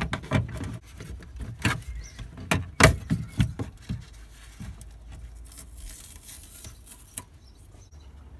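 Plastic clicks, knocks and creaks of an old BMW E46 rear light cluster being forced out of its opening in the body, stuck in place after years. Most of the knocks come in the first four seconds, with one more click near the end.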